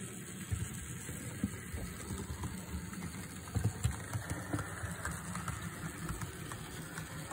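Model steam locomotive running along the layout's track: a steady low rumble of motor and wheels with irregular small clicks and knocks.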